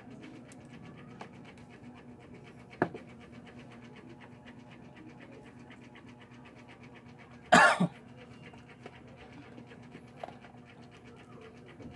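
A single short, loud animal call about halfway through, over a faint steady low hum, with a sharp click earlier on.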